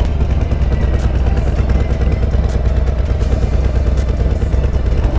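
Harley-Davidson Road Glide's 131 cubic-inch V-twin engine running steadily while riding at low speed, a low, even engine note.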